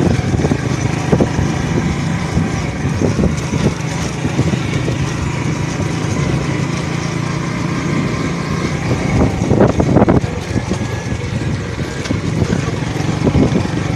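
70cc single-cylinder motorcycle engine running steadily under way on a dirt track, with wind noise over the microphone. A brief louder clatter comes about ten seconds in.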